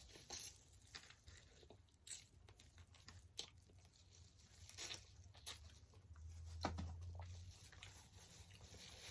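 Quiet eating sounds: chewing with scattered small mouth clicks and smacks, and the occasional rustle of handling food.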